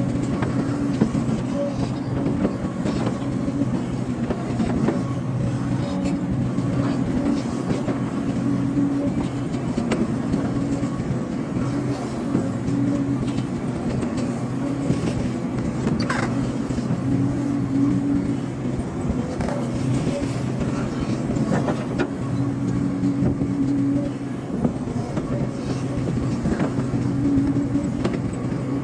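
Hydraulic excavator's diesel engine running steadily under working load, its note swelling and easing slightly as the hydraulics work, with a few short knocks.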